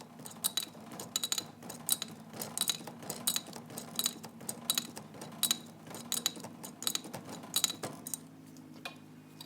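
Metal clicking and clinking of a wrench turning the puller bolt that draws the oil pump out of a Jaguar Compact A overdrive, in short clusters of sharp ticks about every half second to second, stopping about eight seconds in. A steady low hum lies underneath.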